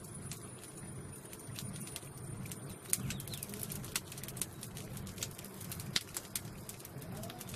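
Pigeons cooing, with scattered light clicks and taps throughout.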